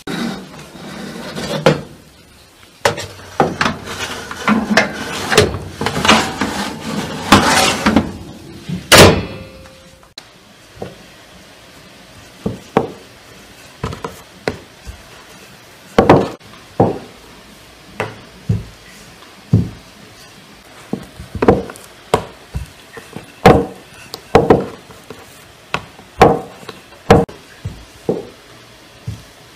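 Metal baking tray clattering at the oven, ending in one loud clang about nine seconds in. Then a wooden rolling pin knocks against a wooden board as dough is rolled out, about one knock a second.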